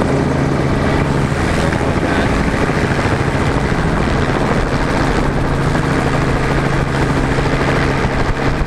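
Helicopter in flight, its rotor and engine running steadily, heard from aboard.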